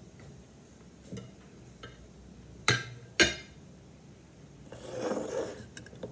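A metal ice cream scoop knocking twice, sharply, against a ceramic plate, with lighter clicks of utensils before it; then a bowl scraping across a wooden tabletop for about a second.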